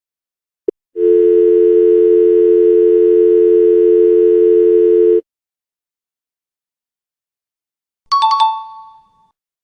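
A click, then a telephone dial tone: a steady two-note hum held for about four seconds that cuts off sharply. Near the end comes a short, bright ding that rings off within about a second.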